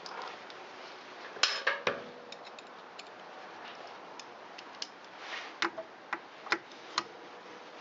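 Hand tools and small metal parts clicking and knocking during small-engine reassembly: a cluster of sharp knocks about a second and a half in, then scattered light ticks and a few louder clicks near the end.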